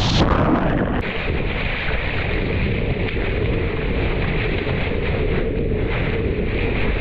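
Ocean water rushing and splashing around a surfboard with wind buffeting an action camera's microphone as a wave is ridden, a steady churning noise throughout.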